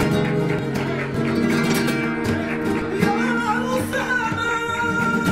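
Two flamenco guitars playing bulería accompaniment together, mixing strummed rasgueado chords with picked lines.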